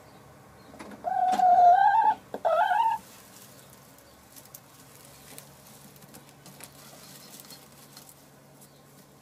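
Light Sussex hen on the nest laying an egg: two loud, drawn-out calls, the first about a second long and the second shorter and rising at its end. Faint rustling in the nest straw follows.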